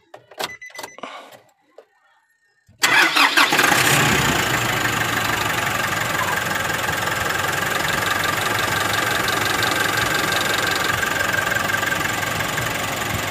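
A van's engine is cranked and catches about three seconds in, then idles steadily, run just after an oil change to circulate the fresh oil. A few light clicks come before the start.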